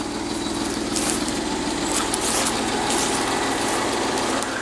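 Chrysler Sebring convertible's engine idling steadily, left running to warm up after a jump start; the engine sounds quiet and smooth, the quietest it has sounded in a year and a half.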